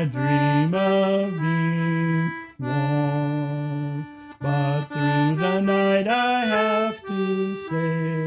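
Concertina played on its own. It sounds chords and melody in held notes about a second long, with short breaks between phrases.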